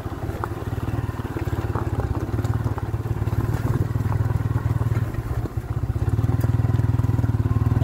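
Motorcycle engine running steadily while the bike rides over rough, grassy ground, with a few light clicks and clatters. It gets a little louder over the last couple of seconds.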